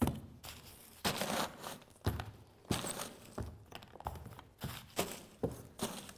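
Paper rustling and crumpling in short, irregular handfuls, about one a second, as papers on a desk are gathered up and cleared away.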